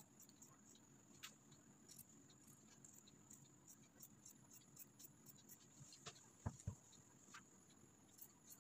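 Very faint snipping of scissors cutting through cotton fabric: scattered soft clicks, with two louder soft knocks close together about two-thirds of the way through, over a faint steady high whine.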